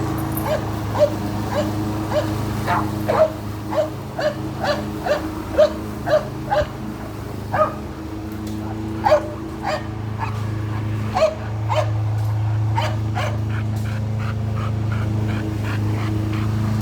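A dog barking in a rapid series of short barks, at times about two a second, over the steady drone of a running lawn mower engine. The barking stops about 13 seconds in, leaving the mower running alone.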